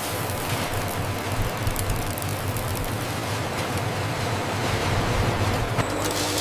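Steady industrial machinery noise: a dense rumbling hiss over a low hum, with scattered light clicks and clatter.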